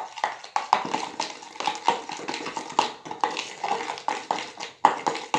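A metal spoon stirring a runny glue-and-activator slime mixture in a plastic bowl, clicking and scraping against the bowl about four times a second.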